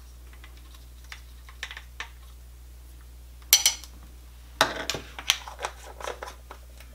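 Small spice jars and their plastic caps being handled: a few light taps, a sharper clatter about three and a half seconds in, then a run of quick clicks and rattles.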